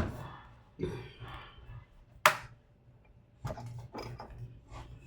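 Sharp clicks and knocks from handling a laptop and its parts on a workbench: one loud click at the start, another about two seconds later, then a run of lighter clicks near the end, over a faint steady low hum.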